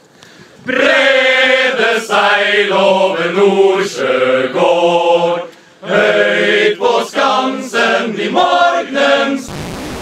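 A group of men singing loudly together in chorus without instruments, in two phrases with a short break about five and a half seconds in. A brief burst of static hiss near the end.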